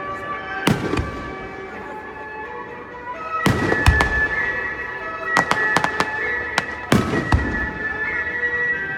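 Aerial fireworks bursting: two booms about a second in, then a denser run of bangs and crackles from about three and a half to seven and a half seconds in. Music with long held notes plays underneath.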